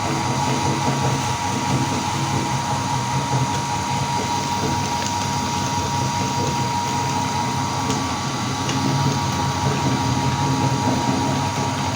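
Meat grinder motor running steadily with a constant whine and low hum, grinding colourful Oreo cookies.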